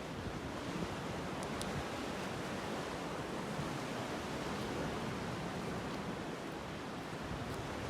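Steady rushing seaside ambience of wind and water, with a couple of faint clicks about a second and a half in.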